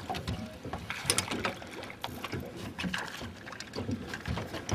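A hooked trout thrashing at the surface beside a small boat, splashing water, with irregular sharp slaps and splashes at the side of the hull.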